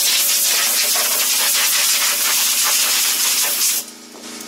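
Compressed-air blow gun hissing loudly, blowing rinse water off a freshly washed motorcycle; the blast cuts off near the end, leaving a steady hum underneath.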